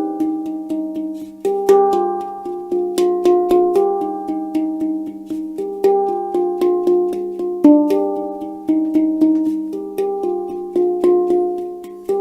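Pandora Pantam handpan in G/C harmonic minor played by hand in a flowing improvisation. It gives a quick run of struck steel notes, about two or three a second, each ringing on, with a low note sustaining underneath.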